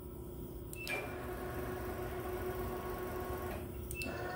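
Stepper motors of a Prototrak MX2-controlled Bridgeport mill driving the axes through the ball screws to the next programmed position: an even whir lasting about three seconds under a steady low hum, with a brief high tone as it starts and another just after it stops.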